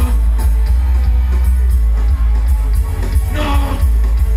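A live reggae band playing loud through the concert sound system, with a heavy, booming bass line and drum kit.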